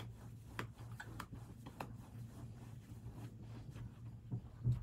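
Quiet room tone: a low steady hum with faint scattered clicks, and a couple of soft bumps near the end.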